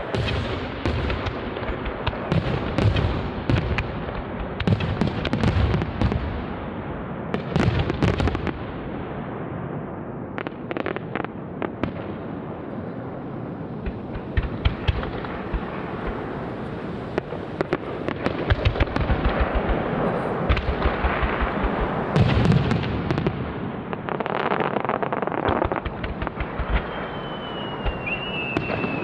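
Aerial fireworks display: many shells bursting in quick succession with continuous crackling between the bangs. Near the end a thin whistle falls slowly in pitch.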